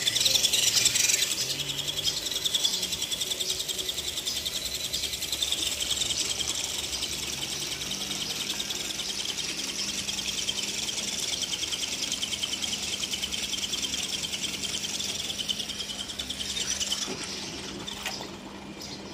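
Electric motor and gearbox of an RC Land Rover D90 off-roader running at a high-pitched whir with a fast flutter while its wheels spin and churn water in a basin; the whir stops about 17 seconds in.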